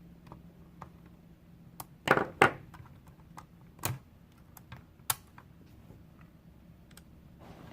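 Scattered sharp plastic clicks and knocks as pliers squeeze the locking tabs and work the plastic head off a radio transmitter's dial. The loudest cluster comes about two seconds in, with single clicks near four and five seconds.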